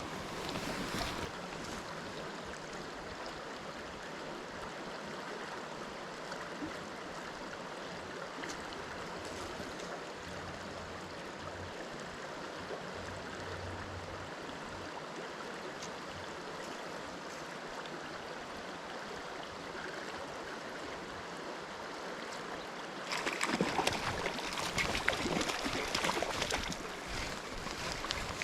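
Steady rushing of a flowing trout stream. About 23 seconds in it turns louder and choppier, with many short splashy crackles on top.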